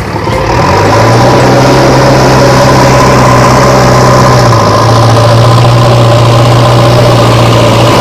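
A steady engine idling sound, settling slightly lower in pitch about four and a half seconds in.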